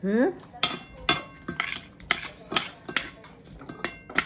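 Metal spoons and forks clinking and scraping on ceramic plates during a meal: about ten sharp clinks, each with a brief ring. A short rising hum of a voice comes at the very start.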